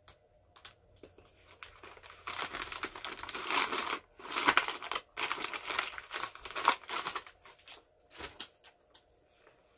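Plastic snack packaging crinkling and rustling as it is handled: a few light crackles, then a few seconds of loud continuous crinkling with a brief pause in the middle, thinning out to scattered crackles near the end.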